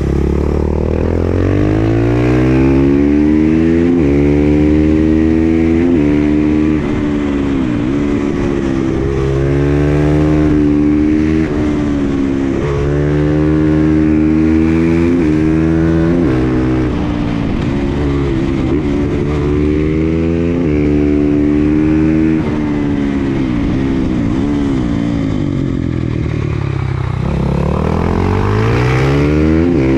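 KTM 500 EXC-F single-cylinder four-stroke engine with an FMF exhaust, ridden hard: the engine note climbs under throttle and drops at each gear change or roll-off, over and over. Near the end the revs fall away and then climb again.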